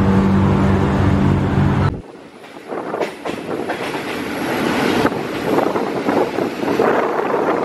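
A steady engine hum from the stopped train cuts off abruptly about two seconds in. It gives way to the rumble and clatter of the moving passenger train's wheels on the rails, heard through an open coach window as the train crosses a level crossing.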